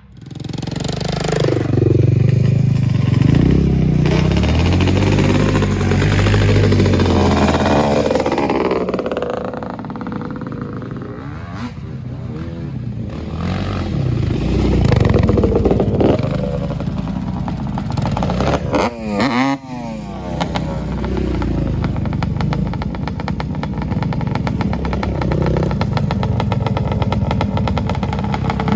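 ATV engines revving hard and running at speed, the pitch rising and falling repeatedly with throttle changes and a quick run of up-and-down sweeps near the middle.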